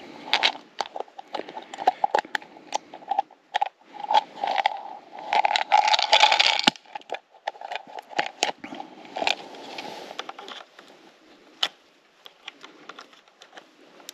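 Rustling and crackling with many sharp clicks and knocks, busiest around the middle and thinning out over the last few seconds.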